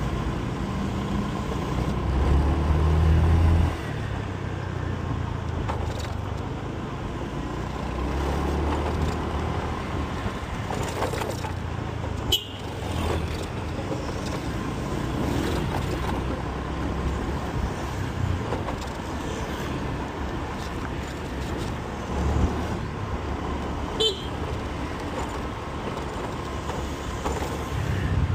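Motorcycle riding through congested city traffic: steady engine and road noise of the surrounding cars and scooters, with brief horn toots about halfway through and again near the end.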